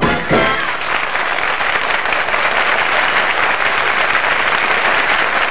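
The band's last brassy chord dies away in the first half second, then a studio audience applauds steadily.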